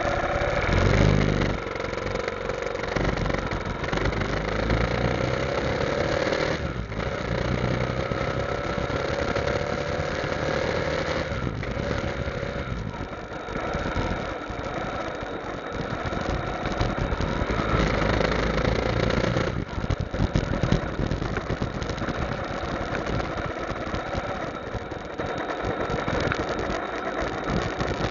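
Motorcycle engine running while riding along a road, its note rising and falling with speed and dipping briefly about three times.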